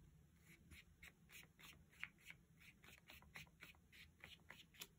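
Faint, quick scratchy strokes of a small paintbrush dabbing paint onto paper, about three or four a second.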